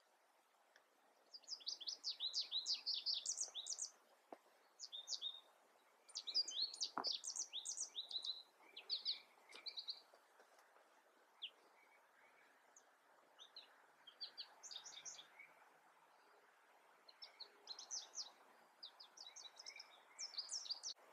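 Small songbirds singing: bursts of quick, high chirping phrases every few seconds over a faint background hiss, with one faint snap about seven seconds in.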